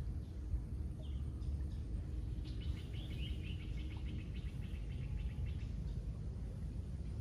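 A bird chirping: one short call about a second in, then a quick run of high chirps a couple of seconds later, over a steady low rumble.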